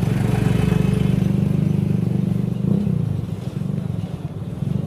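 An engine running with a fast, even chugging pulse. It eases off about three seconds in and picks up again near the end.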